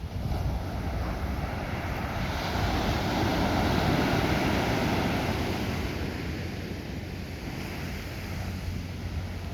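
Sea waves breaking and washing ashore, swelling louder a few seconds in and then easing off, with wind rumbling on the microphone.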